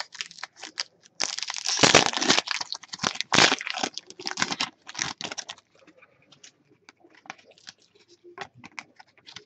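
Foil trading-card pack wrapper being torn and crinkled, a dense crackle lasting about four seconds. After that come fainter clicks and rustles as the cards are handled.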